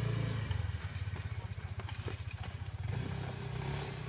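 An engine idling nearby with a low, steady, pulsing hum that eases about a second in and picks up again near the end, with faint clicks and rustles.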